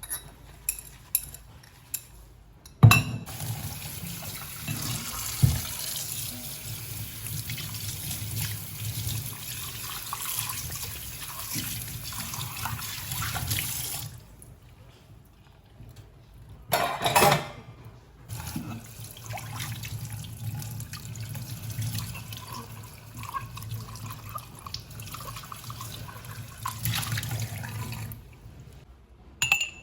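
Water running from a tap into a sink in two long spells, with sharp clicks and knocks before, between and after them.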